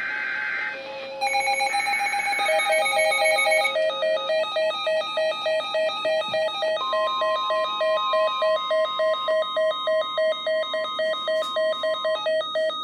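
Emergency Alert System data bursts, a warbling digital screech, end about a second in. An electronic alert tone then pulses about three times a second, and about halfway through a steady high warning tone joins it.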